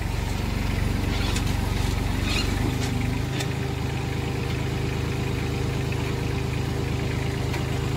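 Compact tractor's diesel engine running steadily with a rotavator mounted behind; its note shifts lower about three seconds in and then holds steady, with a few light metallic clicks around that change.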